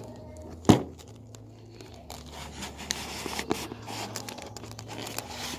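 A sharp knock under a second in, then plastic packaging crinkling and rustling as it is handled and pulled at.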